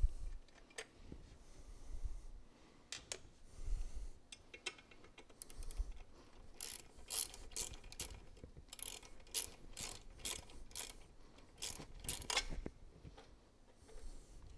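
Socket ratchet clicking as an 8mm socket, fitted straight onto a radiator mounting bolt, backs the bolt out. A few scattered clicks come first, then a steady run of about two clicks a second through the second half.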